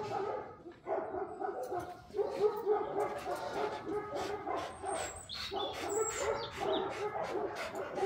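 A dog barking and whining excitedly in a dense run of quick yips, several a second.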